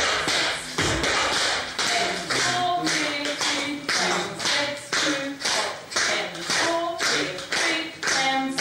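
Tap shoes of several dancers striking a wooden floor together in a steady, even rhythm of taps and stamps.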